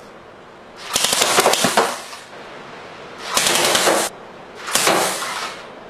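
Home-made compressed-air Coke-bottle Gatling gun firing three rapid bursts, each a fast string of air-valve blasts as the rotating bottles pass the valve-opening cam. The first burst lasts over a second and the other two are shorter.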